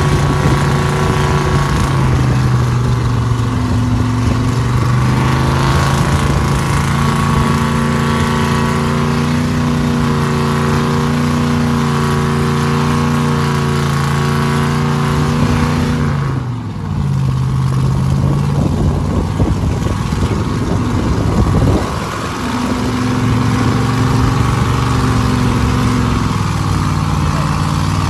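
Mega truck's engine held at high revs while the truck sits bogged in deep mud on its giant tractor tyres. The revs briefly drop and climb back twice, past the halfway mark.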